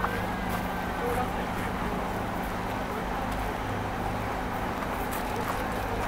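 Steady hum of city traffic, with people's voices faintly in the background.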